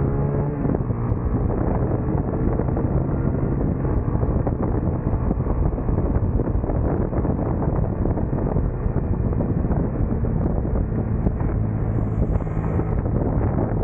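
Racing motorcycle engine running at speed, heavily masked by wind buffeting the microphone; the engine's steady note comes through more clearly near the end.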